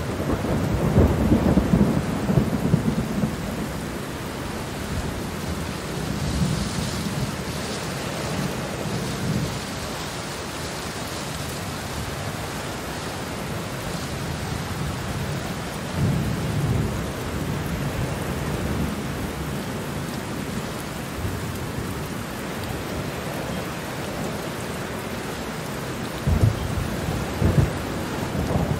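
Steady rain falling with thunder rumbling over it: a long low rumble in the first few seconds, further rolls about a quarter and halfway through, and a couple of sharper claps near the end.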